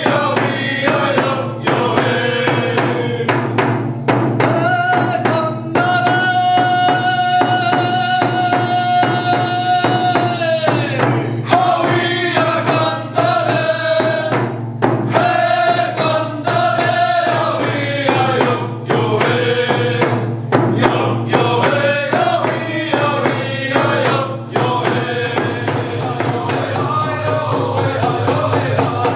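A group of men singing a chant in unison, with hand frame drums struck in a steady beat. About six seconds in, the voices hold one long note for several seconds. Near the end, the strokes turn fast and even.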